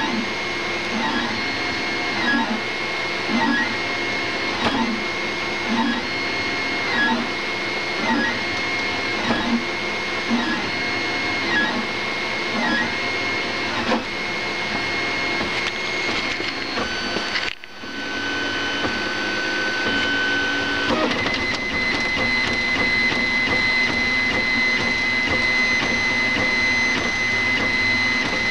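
Printrbot Go Large V2 3D printer running a print: its stepper motors whine as the print head moves, rising and falling in a rhythm a little faster than once a second. After a brief dropout about halfway through, the whine turns steadier and more even.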